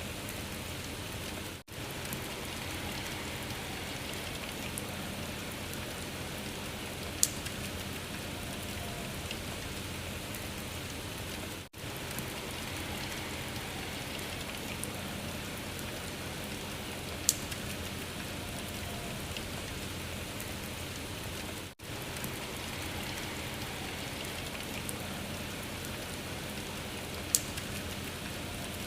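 Steady hiss of rain falling on a surface, played as a loop that repeats about every ten seconds. Each repeat has a brief drop-out and one sharp pop.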